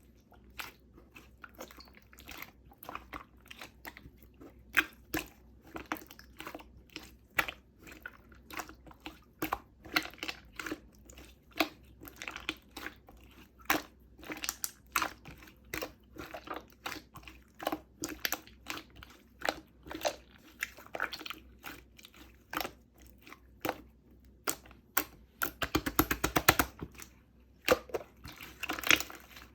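Clear, colourless slime being pressed and squished by hand, giving a run of short wet clicks and pops, about one or two a second, with a quick flurry of pops a few seconds before the end.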